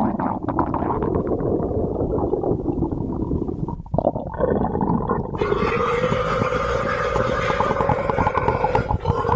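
A person's stomach growling: a rumbling, gurgling growl that breaks off briefly about four seconds in, then turns into a long, steady-pitched growl.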